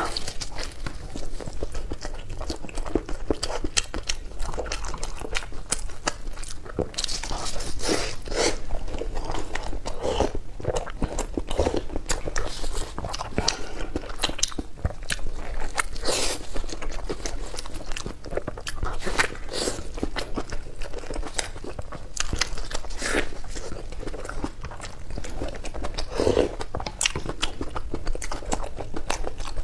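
Close-miked eating: biting into and chewing soft steamed stuffed buns, a steady run of moist chewing clicks and mouth smacks.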